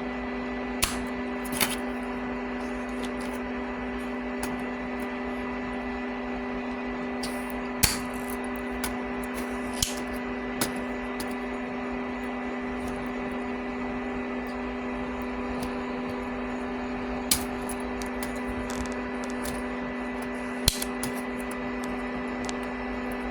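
A steady electrical hum, with several pitches held throughout, and a handful of sharp small clicks and taps scattered through it from tools working on a circuit board during desoldering.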